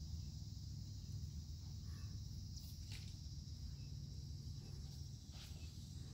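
Outdoor ambience: a steady high-pitched insect drone over a low rumble, with a few faint ticks.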